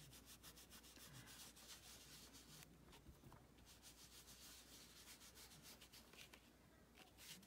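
Faint, quick dabbing and rubbing of an ink sponge on card stock, several short strokes a second with a couple of brief pauses.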